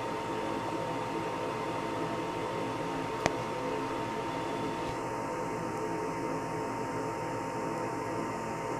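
Canarm 52-inch Victorian ceiling fan running steadily: an even motor hum with a thin high tone over it. A single sharp click about three seconds in.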